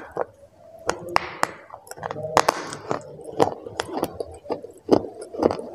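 Chocolate bars being bitten and chewed: irregular sharp snaps and clicks with wet, squishy mouth sounds in between.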